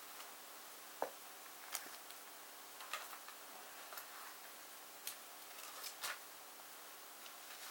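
Faint, sharp ticks about once a second, a few unevenly spaced, over a low steady room hum.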